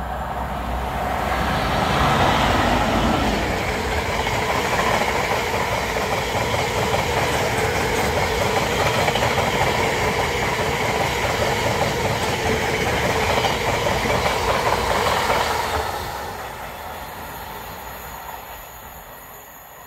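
Freight train of intermodal container flat wagons, many running empty, passing through a station at speed, with the steady rumble and clatter of wheels on the rails. It builds as the train arrives, stays loud for about fourteen seconds, then fades as the train draws away near the end.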